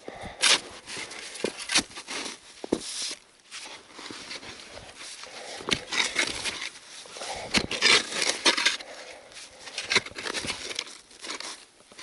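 Digging in snow and soil: irregular crunching and scraping, with several sharp clicks along the way.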